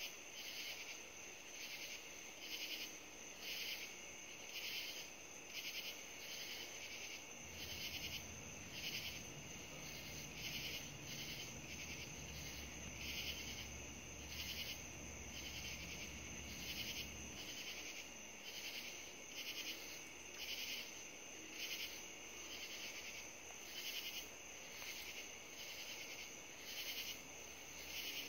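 Night insects chirping in a steady rhythm, about one high-pitched pulse a second. A low rumble swells in about seven seconds in and fades out around eighteen seconds.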